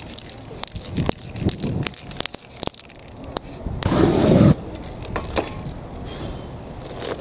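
Aerosol spray paint lit with a lighter into a flamethrower: one short rush of burning spray about four seconds in, lasting under a second, the loudest sound here. Scattered sharp clicks and taps come before and after it.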